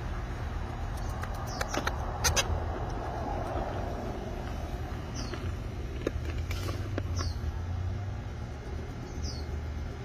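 Parrot chicks begging while being hand-fed: a few loud raspy squawks about two seconds in, then scattered short high chirps that fall in pitch, over a steady low rumble.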